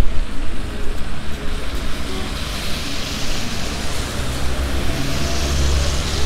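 Traffic on a wet street: a car passing, its tyre hiss swelling a few seconds in, over a low, uneven rumble of wind on the microphone.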